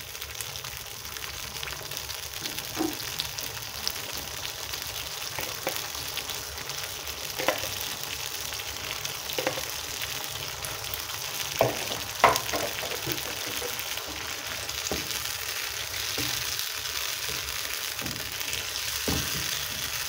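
Thick curry sauce sizzling steadily in a frying pan, with scattered clicks and scrapes of a spoon against the pan as peeled boiled eggs are dropped in and stirred.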